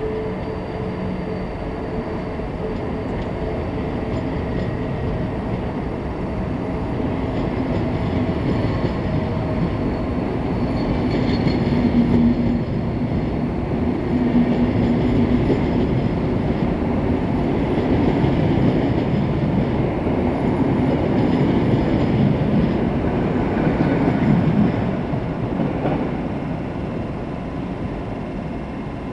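Passenger coaches of a departing SBB InterRegio train, hauled by an Re 460 electric locomotive, rolling past with their wheels running on the rails. The sound grows louder as the train gathers speed and eases off near the end as the last coach pulls away.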